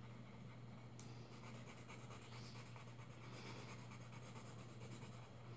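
Faint, uneven scratching of a colored pencil shading on paper, over a steady low hum.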